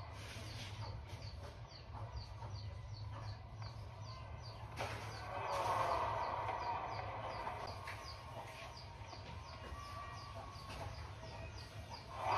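Badminton doubles rally: court shoes squeak in quick short chirps, about two a second, as the players shuffle on the court mat, with a few sharp racket hits on the shuttlecock. A crowd murmur swells briefly about halfway through.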